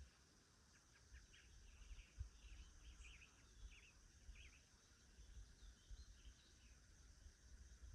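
Faint songbird chirps, a quick run of short calls in the first half that thins out later, over a steady high hiss and a low rumble.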